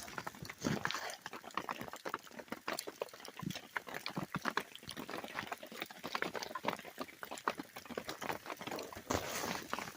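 Freezing rain in an ice storm, ticking and pattering in a dense, irregular stream of small clicks, with a louder rush about nine seconds in.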